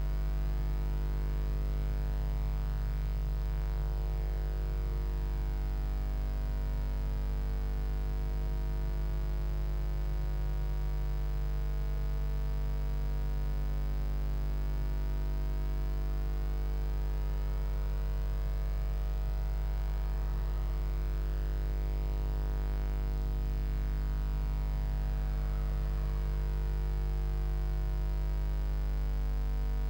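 Steady low electrical mains hum with a stack of overtones, unchanging throughout, picked up on the nest box camera's audio line.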